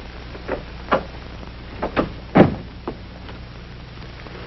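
Footsteps and knocks of people walking into a room, about six uneven steps, the loudest about two and a half seconds in, over a steady low hum.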